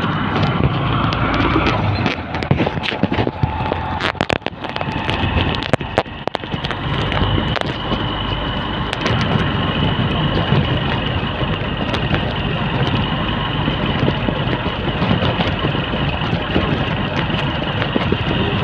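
Honda Shine motorcycle's single-cylinder engine running at a crawl, with road and wind noise. A steady high-pitched whine comes in about six seconds in, after a few knocks.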